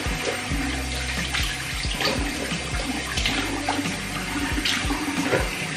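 Tap running into a bathroom sink, with irregular splashes as water is scooped up by hand and splashed onto a face.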